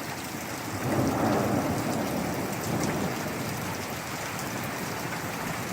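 Heavy rain pouring down steadily, with a low rumble of thunder that swells about a second in and fades over the next two seconds.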